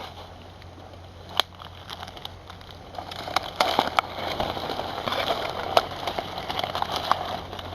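Footsteps pushing through undergrowth, with twigs and leaves crackling and snapping underfoot, sparse at first and busier from about three seconds in.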